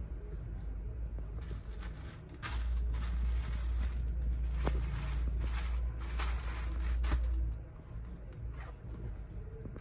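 Plastic packaging rustling and crinkling in irregular bursts as bagged items are handled, over a low rumble in the middle few seconds.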